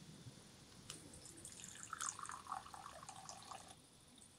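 Tea being poured from a small brass teapot into a cup: a short clink about a second in, then a trickling pour for about two seconds that stops shortly before the end.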